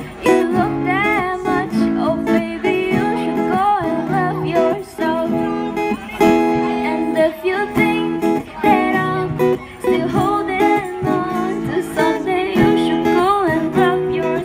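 Live music: a woman singing a melody into a microphone, her held notes wavering in pitch, over a strummed acoustic guitar.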